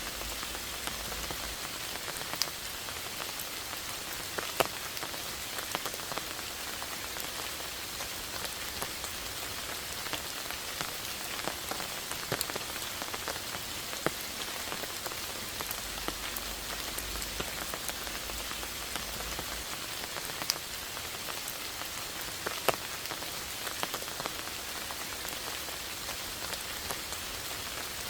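Steady rain falling, an even hiss dotted with the irregular ticks of individual drops landing, a few of them louder and closer.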